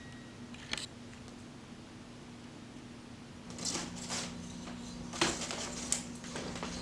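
Stick of homemade wood charcoal scratching across brown kraft paper in short, irregular strokes, starting about halfway in, over a faint steady hum.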